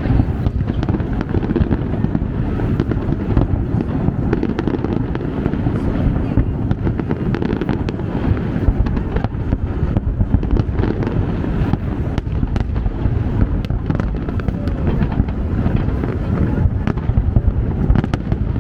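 A distant city fireworks display going off continuously: a dense rumble of many overlapping booms, with sharp crackling pops throughout.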